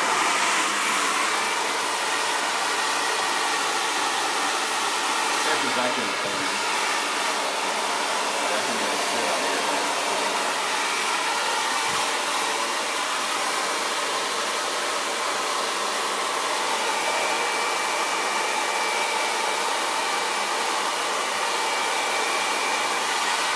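Handheld hair dryer with a diffuser attachment blowing steadily while drying curled hair, with a faint steady whistle joining in the second half.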